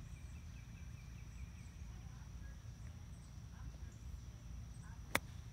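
Faint outdoor ambience: a steady low rumble under a steady high-pitched whine, with a short faint trill about a second in. A single sharp click near the end is the loudest sound.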